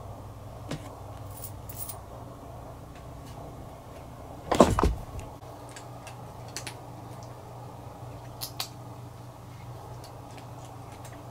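Tortoiseshell cat eating dry kibble from a bowl: scattered sharp crunches and clicks over a steady low hum. A loud thump about four and a half seconds in.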